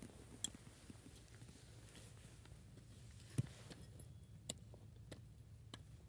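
Quiet outdoor ambience with a few faint, scattered short clicks, the loudest about three and a half seconds in.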